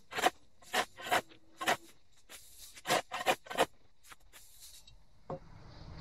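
Shovel blade scraping and chopping into sod and dirt, a short sharp stroke about every half second, stopping about four and a half seconds in. A single dull thud follows near the end.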